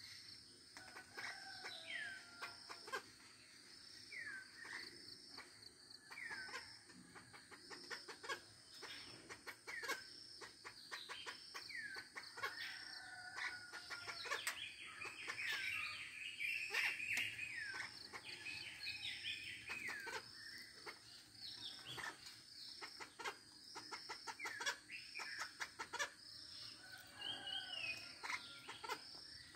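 Wild chicken calling unseen: a steady series of short high chirps, with falling whistled peeps every second or two and short clucks.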